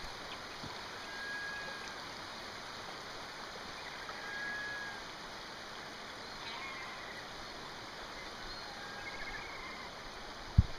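Steady rush of flowing river water, with a few faint, short bird calls scattered through it. A single thump near the end.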